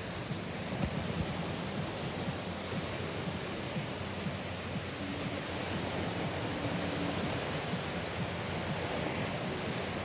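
Ocean waves: a steady, even rush of surf.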